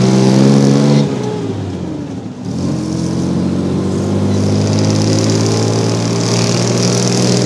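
Vintage Chevrolet car engine running under load. Its pitch holds high, drops about a second in and bottoms out near the middle, then climbs again and holds steady.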